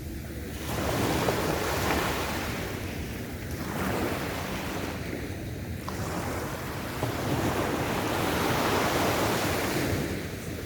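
Sea waves breaking and washing up the beach in repeated surges, each rising and fading over a few seconds, with wind on the microphone.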